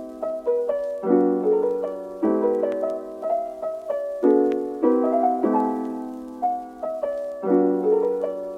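Background music: solo piano playing slow, gentle chords, each struck and left to fade.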